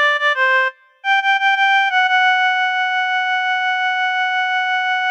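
A single-line melody in a reedy, melodica-like keyboard tone: a few short notes, a brief pause, a quick run of repeated higher notes, then one long held note.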